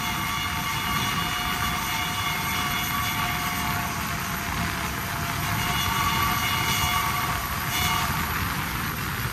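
Steam locomotive's whistle sounding in a long held blast over steady running noise. The blast fades out a little under four seconds in, then a second blast sounds from about five and a half to eight seconds.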